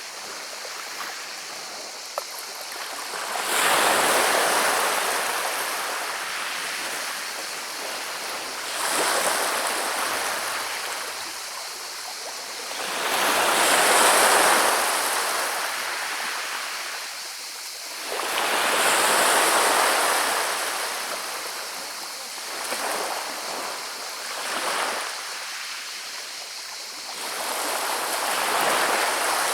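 Sea waves breaking on a pebble beach, the water rolling the pebbles over one another with a hissing rattle. It comes in slow surges about every five seconds, each swelling and then fading.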